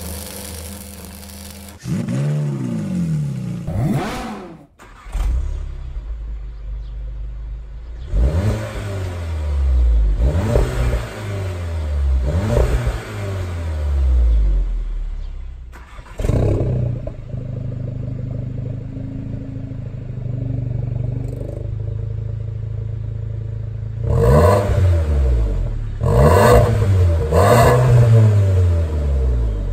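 VW Golf GTI Mk7's 2.0-litre turbocharged four-cylinder idling at a standstill and blipped through several quick revs that rise and fall. It is heard first on its stock exhaust, then on an RCP non-resonated cat-back exhaust with its valve closed. A short logo sound opens it.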